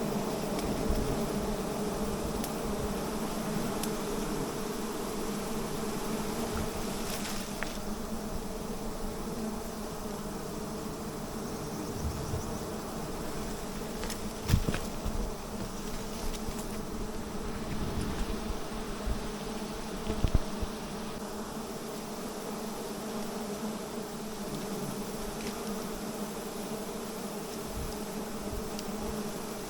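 A swarm of wild honeybees buzzing as a steady dense drone throughout. A couple of short sharp knocks break through, one about halfway and another a few seconds later.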